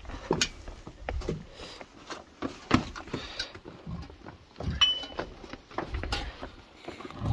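Footsteps of several people scrambling over boulders: irregular knocks and scrapes of shoes on rock, with clinks of metal gear swinging on their packs and one short metallic ring about five seconds in.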